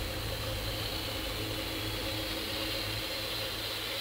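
Boat motor running with a steady drone and a constant hiss, heard from an underwater fishing camera towed in the water.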